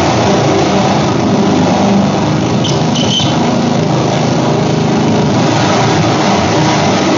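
Loud amplified noise from calculators pushed against spinning electric fans: a dense, steady grinding rattle with wavering low drones, and a couple of brief high squeaks about three seconds in.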